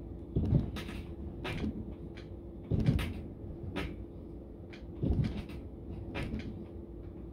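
Hands slapping down onto a stone countertop during incline push-ups, three heavy thumps about two and a half seconds apart with lighter knocks and taps between them, over a steady hum.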